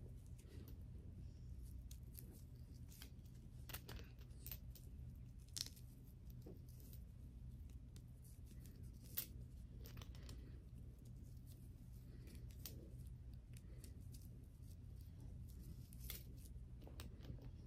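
Faint rustling and soft clicks of fingers handling braided hair and threading small hair accessories onto the braids, a few sharper clicks standing out, over a low steady hum.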